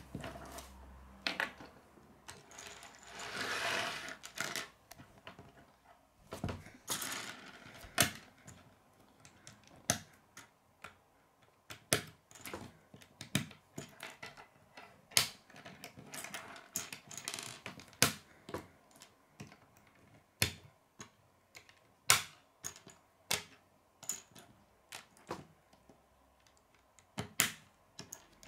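Plastic K'nex rods and connectors clicking as they are snapped together, with pieces tapped and set down on a wooden tabletop. The clicks come irregularly, with a couple of brief rustles of loose pieces being shuffled a few seconds in.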